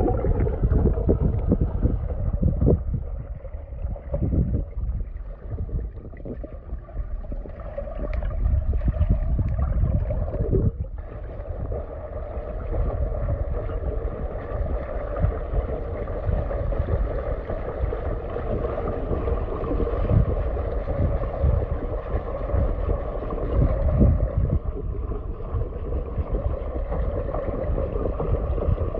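Muffled churning and gurgling of pool water as a swimmer strokes along underwater, picked up by a phone microphone held in the water: a deep, uneven rumble with a steady underlying hum, dipping a little a few seconds in.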